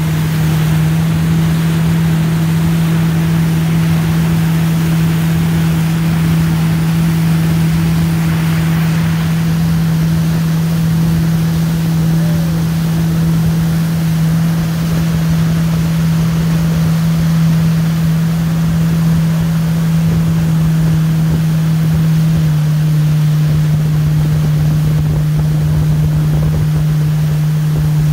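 Towing motorboat's engine running at a steady speed, a constant low drone, with the rush of wake and spray and wind on the microphone. The engine note dips slightly about two-thirds of the way through.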